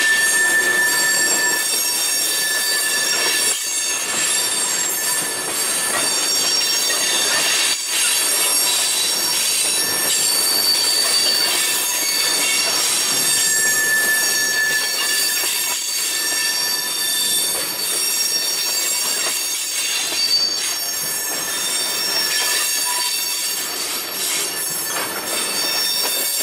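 Freight train of loaded tank cars rolling past, its steel wheels squealing against the rails in several high, shifting tones over the steady rumble of the cars.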